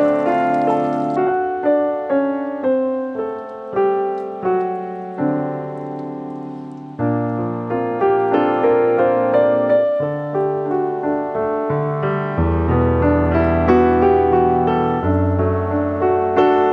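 Background piano music: a slow melody of struck, fading notes over held bass notes.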